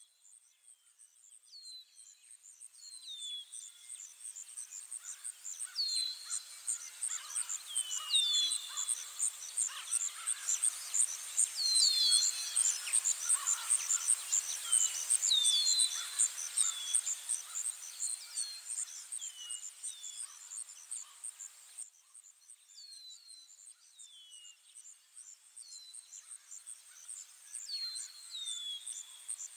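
Nature ambience of songbirds giving short, repeated down-slurred chirps over a steady, fast-pulsing high insect trill. It fades in at the start, and the softer background hiss drops away about two-thirds of the way through.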